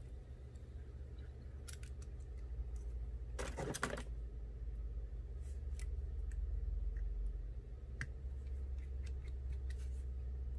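Small metal clicks and taps of tiny screws and a metal bracket being handled and driven back into an iPhone 8 with a precision screwdriver, over a steady low hum. The loudest is a quick cluster of clicks a few seconds in.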